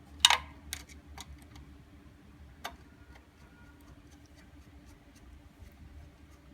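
Small clicks and taps from a pump-cable wire being fitted to a terminal in a solar pump controller box. The loudest is a sharp click just after the start, followed by a few lighter clicks and then scattered faint ticks over a low steady hum.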